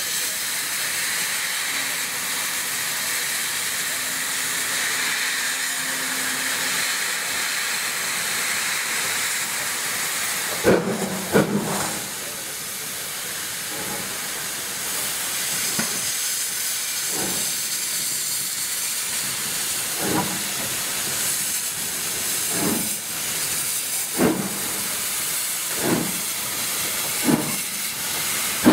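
LMS Class 5 4-6-0 steam locomotive starting away with its cylinder drain cocks open: a loud, steady hiss of steam. From about ten seconds in, slow, heavy exhaust chuffs come every second or two and quicken slightly as the engine gathers way.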